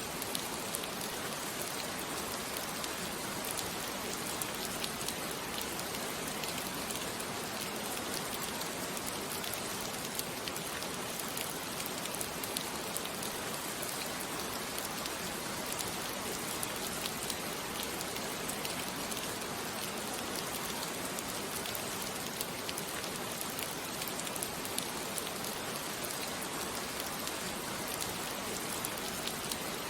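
Steady rain falling on a surface, an even hiss with many fine patters of drops.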